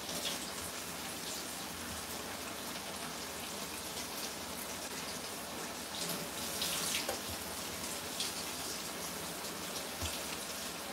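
Pot of aloo keema sizzling steadily on a gas stove, with a few soft rustles of fresh coriander being picked over.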